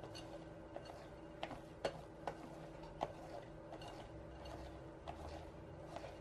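Wire balloon whisk stirring a thick chiffon-cake batter in a glass bowl: soft rhythmic swishes about twice a second, with a few sharp clicks where the wires strike the glass, the loudest in the middle.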